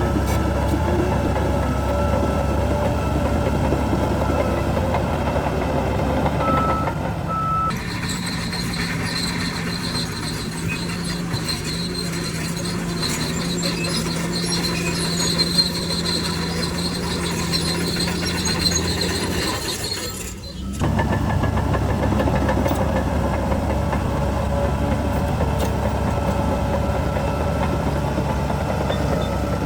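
Heavy diesel earthmoving machinery running with a deep, steady rumble. The sound changes abruptly twice: a steadier hum with high hiss from about 8 s to about 20 s, then the rumble again. Short repeated beeps come in near the end.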